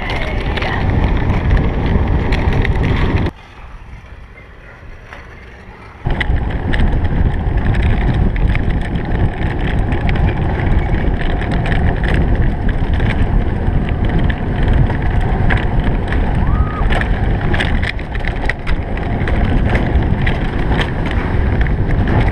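Alpine coaster sled running down its steel tube track: a continuous rolling rumble of the wheels on the rails, mixed with wind buffeting the microphone. It drops much quieter for a few seconds a few seconds in, then picks back up.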